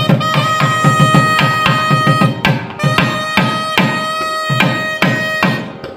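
Music: a reedy wind instrument holding long, steady notes over a fast, regular hand-drum beat.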